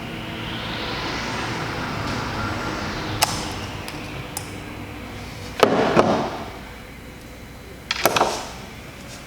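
Handling noises while a hair clipper is worked on by hand with tools: a few sharp clicks, then two short, louder bursts of clattering about two seconds apart.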